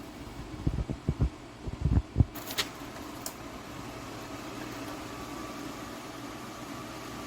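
Electric tower fan running with a steady whoosh, with a few low knocks and then sharp clicks about two to three seconds in. A faint steady whine joins the fan noise from about halfway through.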